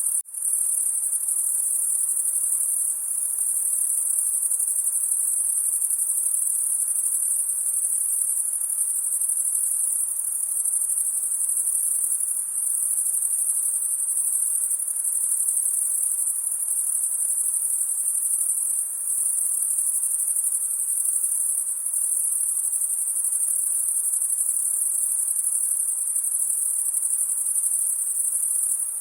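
Night chorus of crickets: a steady, high-pitched chirring that drops out for a split second just after the start.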